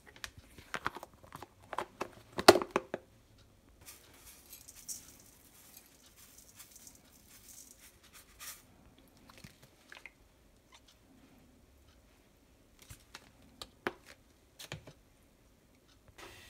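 Dry granules, sweetener and then sesame seeds, poured from a plastic tub into a stainless steel bowl. A cluster of clicks and taps from the tub and spoon against the bowl comes first, then a soft hiss of pouring, and a few clicks near the end.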